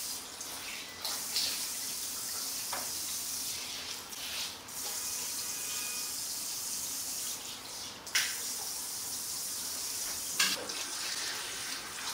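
Water from a handheld shower sprayer running into a salon shampoo basin as a steady hiss, with splashing as hands scoop water over the face. The spray drops briefly a couple of times, and there are a few louder splashes in the second half.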